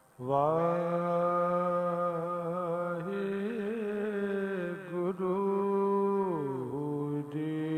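A man's voice singing long, held notes in a slow devotional chant of the Gurbani kirtan kind. It steps and wavers in pitch a few times and slides down near the end.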